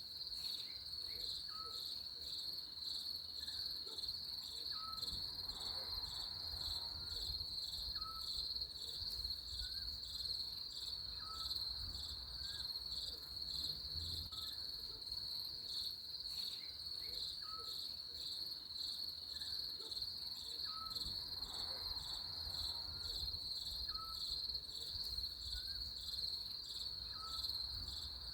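Crickets chirping in a steady, rapidly pulsing high trill. Below it a short, faint note repeats about every second and a half.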